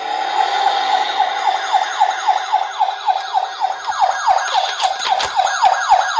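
Battery-powered toy ambulance's electronic siren sounding from its small speaker: a fast wail of falling sweeps, about four to five a second. A few sharp clicks from the toy being handled come near the end.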